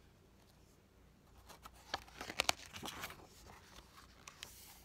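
Page of a hardcover picture book being turned: a brief papery rustle with a few crisp clicks about two to three seconds in.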